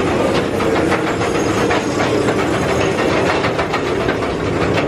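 Mine-ride train cars rolling and clattering along the track, with a steady hiss underneath.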